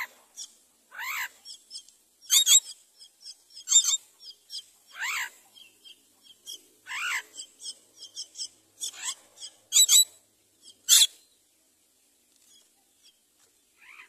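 Common mynas calling at the nest while the adult feeds its chick: about a dozen short, sharp calls, some sliding up and down in pitch, spread through the first eleven seconds and then stopping.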